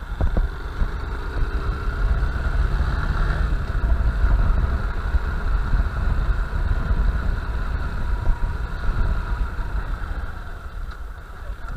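Honda Bros 160 motorcycle on the move, its single-cylinder engine running steadily under a heavy low rumble.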